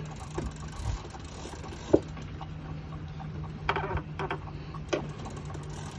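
Big-game fishing reel being cranked under heavy load from a hooked stingray, its gears clicking, with sharp knocks about two seconds in and a cluster of them around four to five seconds. A steady low hum runs underneath.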